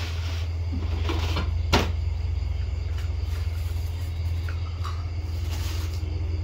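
A spoon clinking and scraping on plates and bowls as rice is served. There is a sharp clink a little under two seconds in, and a steady low hum underneath.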